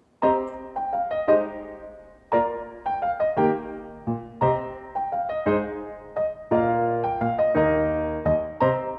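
Background music: a piano or keyboard playing a light, repeating melody of struck notes that each fade away.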